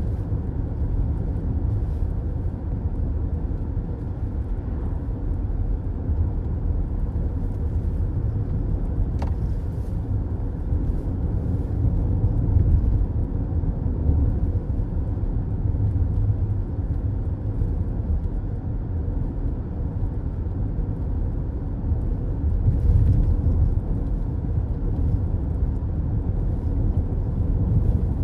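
Steady low road rumble of a car cruising on a highway, heard from inside the cabin: tyre and engine noise with no changes in speed.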